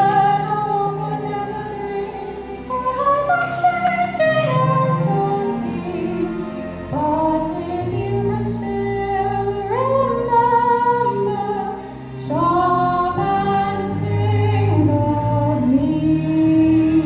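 A girl singing a solo into a microphone, holding long notes, over a sustained accompaniment.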